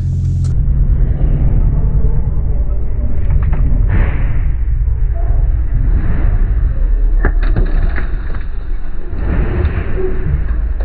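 Low, steady rumble of a car's engine and road noise heard inside the cabin while driving, with a few sharp clicks or knocks, two close together about seven seconds in.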